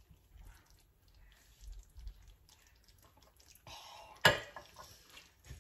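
Quiet sips of milk from a drinking glass with faint glass-handling noises. A brief breathy sound comes just before four seconds in, then a single sharp click, the loudest sound here, as the mouth burns from chili.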